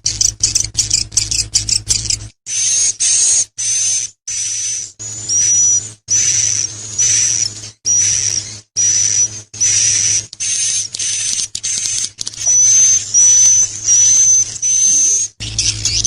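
High-pitched bird song of the bird called 'akau': rapid chattering and repeated thin whistled notes in short bursts, broken by abrupt cuts. A low hum sits under the first two seconds and returns near the end.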